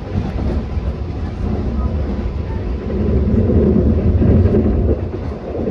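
Long Island Rail Road train running at speed: a loud, deep rumble of wheels and rails that builds to a peak about four seconds in and eases slightly near the end.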